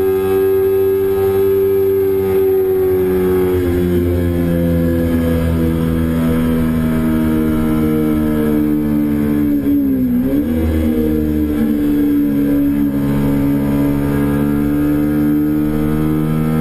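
2008 Kawasaki Ninja 250R's parallel-twin engine running hard at high revs under the rider, heard from an onboard camera with wind rush. Its pitch eases slightly about four seconds in, then dips sharply and climbs back about ten seconds in as the bike goes through a corner.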